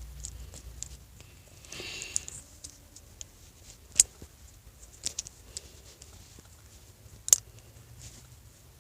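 Sharp little clicks and light rustling from small plastic parts of a homemade plastic switchblade being handled and fitted, with two louder clicks about four and seven seconds in.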